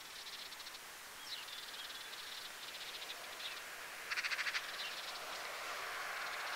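Boeing 757 freighter on final approach, its jet noise a faint hiss rising steadily in loudness as it nears. Over it, rapid pulsing trills and a few short chirps from small wildlife, loudest in a brief burst about four seconds in.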